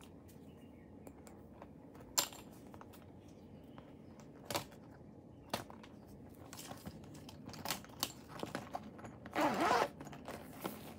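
A clear plastic pencil case full of pens being handled: scattered light taps and clicks, then a short zip of its zipper about nine and a half seconds in, the loudest sound.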